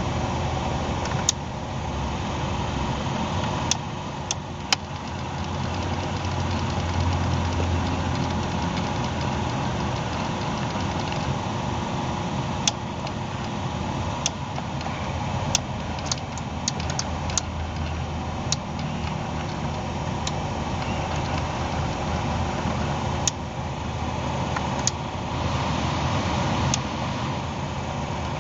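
Toyota Corolla Altis running at idle with the air conditioning on: a steady low engine hum with sharp, irregular clicks, a cluster of them about halfway through. This is the abnormal air-conditioning noise the owner is recording.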